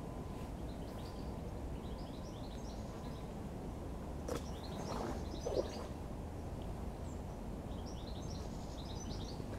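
Small songbirds twittering in short high phrases over a steady low outdoor rumble, with a click and a brief louder knock about halfway through.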